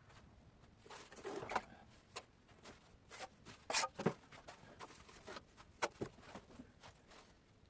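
Bricklaying sounds from a mason's trowel working mortar against old clinker bricks: a short scrape about a second in, then a scattering of sharp taps and clicks.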